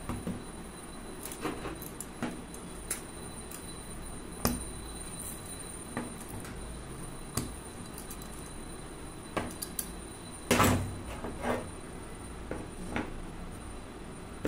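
Kitchen items being handled and set down on a tabletop: scattered light clicks and knocks with metal clinks from a small steel press, and a louder short clatter about ten and a half seconds in.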